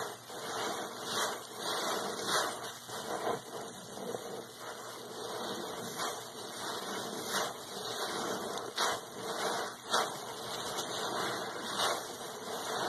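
A sudsy sponge being squeezed and kneaded by gloved hands in foamy water. It makes irregular wet squelches, roughly one a second, over a steady crackle of foam and running water.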